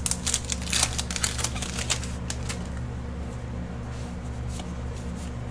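Pokémon trading cards being slid out of a foil booster wrapper and flipped through by hand: a quick run of small clicks and rustles over the first two seconds, then a few more near the end. A steady low hum sits underneath.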